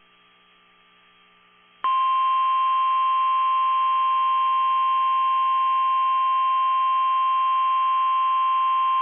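NOAA Weather Radio warning alarm tone: one steady, high-pitched 1050 Hz beep that starts abruptly about two seconds in and holds. It signals that an emergency warning, here a severe thunderstorm warning, is about to be broadcast. Before it there is only faint radio hiss.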